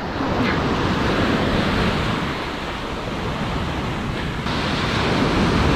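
Ocean surf washing up a sandy beach: a steady rush of breaking waves and foam running through the shallows, swelling again about four and a half seconds in.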